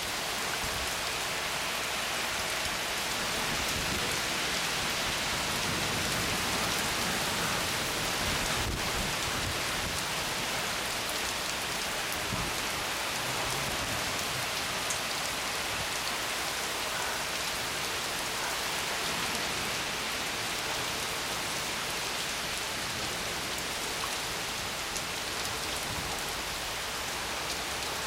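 Steady heavy rain from a thunderstorm, falling hard on surfaces. A low rumble of thunder comes in under the rain in the first part and fades away.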